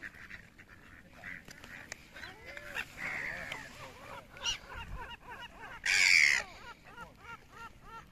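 Ducks and gulls calling on a pond. Short calls repeat about three times a second through the second half, and one loud, harsh call comes about six seconds in.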